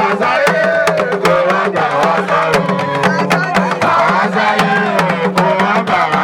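Music with fast, steady drumming under a melody that bends up and down like a singing voice.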